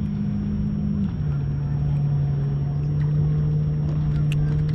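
Boat motor running with a steady hum that drops slightly in pitch about a second in.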